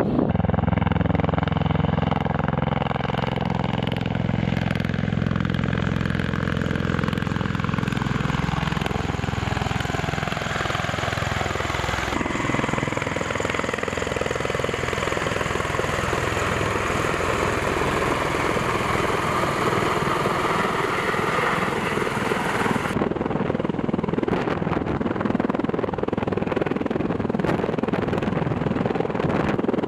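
MV-22B Osprey tiltrotor hovering low overhead: loud, steady rotor and turbine noise, with a descending whine in the first ten seconds. The noise changes abruptly twice, about twelve and twenty-three seconds in.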